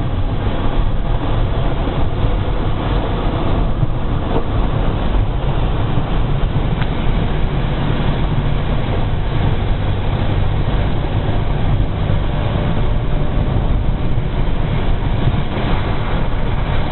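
Steady low drone of a truck's engine and road noise heard inside the cab while driving.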